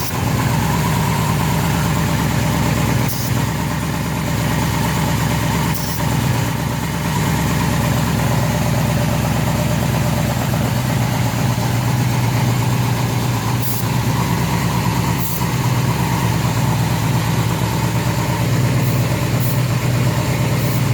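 1999 Yamaha Royal Star's carbureted V4 engine idling steadily, with a few short bursts of hiss. The owner says its running sounds like a vacuum leak.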